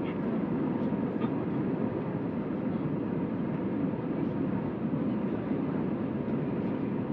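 Steady cabin noise inside an Airbus A321 at the end of its landing: an even, low rumble of engines and airflow.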